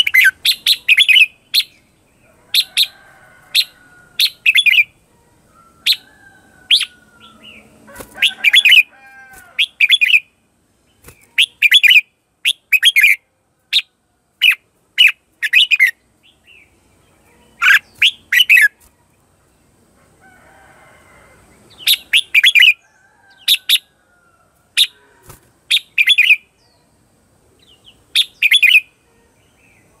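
Red-whiskered bulbul calling: sharp, repeated 'ché chéc' chattering notes in quick clusters every second or two, with softer, lower warbling notes in between.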